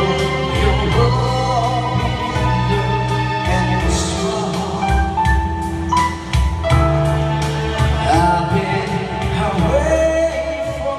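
Man singing into a handheld microphone over backing music with a steady beat.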